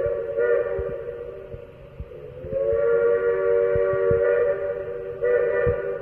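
Baldwin three-chime steam whistle blowing its three-note chord: one blast tails off about two seconds in, then a second long blast starts and swells louder near the end.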